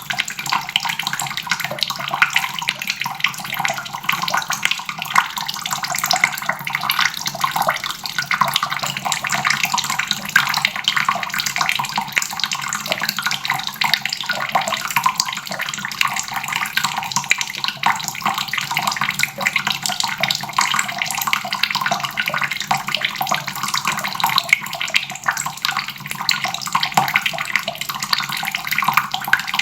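Water running steadily from a faucet and splashing into a basin.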